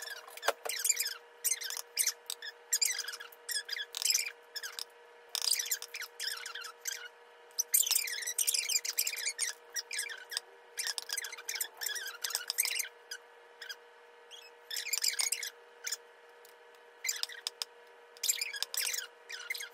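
Hard-boiled eggs being peeled by hand over a plastic bowl: shells cracking and squeaking in short, irregular bursts, with a faint steady hum underneath.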